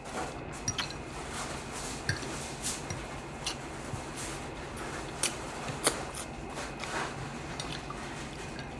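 A person chewing food close to the microphone, with irregular wet mouth clicks and smacks, over a steady low hum.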